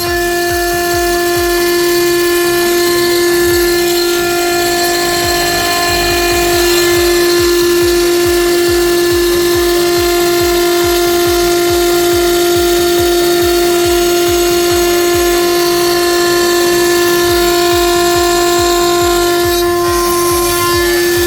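Single-head CNC milling machine running a preset program, milling lock openings in an aluminium door profile: a steady spindle whine over the noise of cutting.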